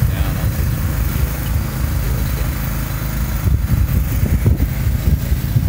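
Small engine running steadily: the power unit for a wool press, giving a continuous low rumble.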